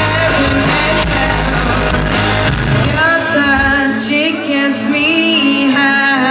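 Live rock band playing a song. A singing voice comes in about three seconds in as the bass and drums thin out, and the full low end returns near the end.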